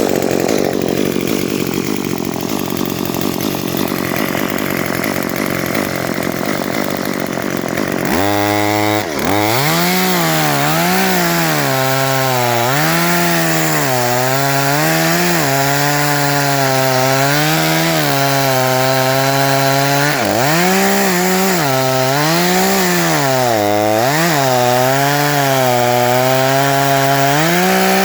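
Two-stroke chainsaw cutting wood. About eight seconds in, the engine note comes up sharply, then keeps rising and falling as the chain bites into the wood and frees again.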